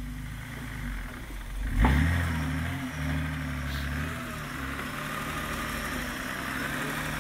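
BMW 325e 2.7-litre straight-six engine in a homemade tractor running steadily, with a sharp knock and a quick rev up about two seconds in, then settling back to an even run.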